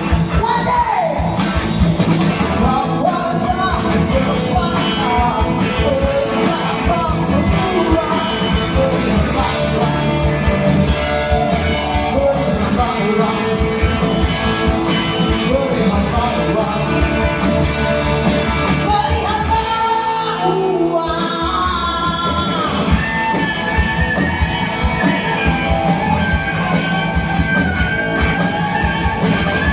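Indonesian rock song played by a band with electric guitar, in a stretch without sung lyrics. The bass drops out briefly about 20 seconds in, and a long high held note follows.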